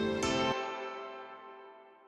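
End of a title-card music sting: a last pitched note sounds, the bass drops out, and the remaining notes ring and fade away.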